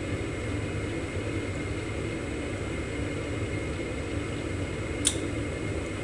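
Carrier Infinity 80 (58CVA) gas furnace's draft inducer motor running steadily on high speed, a steady whir with a thin high whine, while the hot surface igniter warms up: the stage of the ignition sequence just before the gas valve opens. A single short click about five seconds in.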